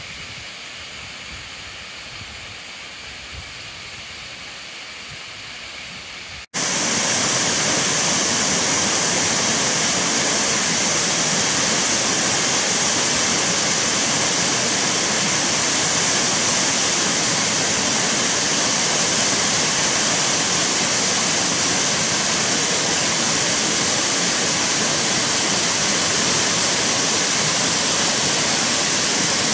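Waterfall pouring into a rock plunge pool: a steady rushing of falling water. It is softer at first, then much louder and closer after a sudden cut about six seconds in.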